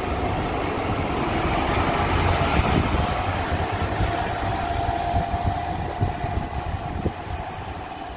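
City bus pulling away from the stop and driving off: engine and drive noise with a steady whine, loudest about two to three seconds in, then fading as it moves away.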